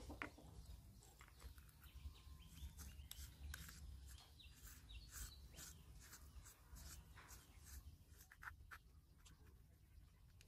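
Faint clicks and scrapes of metal parts handled by hand: an angle grinder's cast aluminium gear housing and its spindle gear being worked apart, over a low steady hum.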